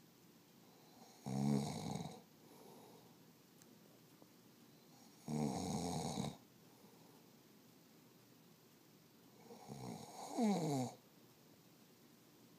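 A man snoring in his sleep: three loud snores about four seconds apart, the last one sliding down in pitch at its end.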